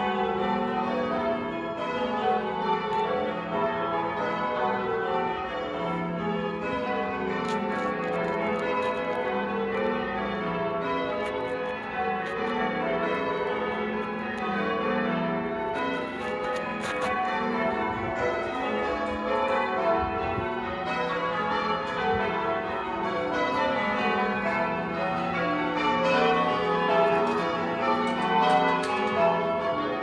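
The tower bells of St Mary de Castro church being change rung: a steady, continuous run of bell strikes at many different pitches, one bell after another in quick succession, each note ringing on under the next.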